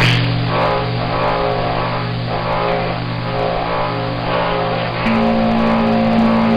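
CB radio receiver audio on a busy band: hiss and garbled signals with steady whistling heterodyne tones, one tone jumping higher about five seconds in.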